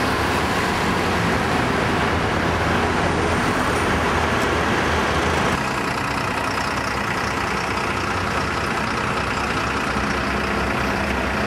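Steady city road traffic: cars and buses running past on a busy street, a little quieter a little over halfway through.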